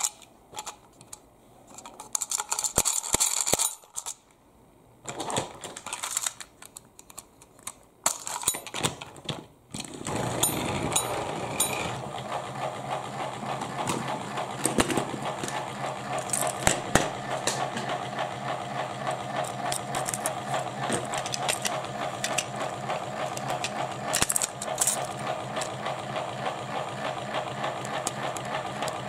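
Clicks and plastic rattles as toy engines are picked up and handled. About ten seconds in, a steady motor whirr starts and continues: battery-powered Plarail toy trains running on plastic track, with further handling clicks now and then.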